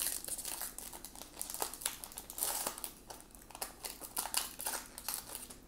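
Wrapper of a 2018 Topps Fire baseball card pack crinkling and rustling in the hands as the pack is opened: a run of irregular crackles.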